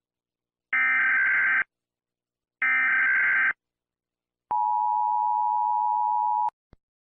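Emergency Alert System signalling: two bursts of SAME header data tones, each a buzzy warble just under a second long, about two seconds apart. Then the EAS attention signal, a steady two-note tone held for about two seconds that cuts off sharply, marking the start of an emergency alert.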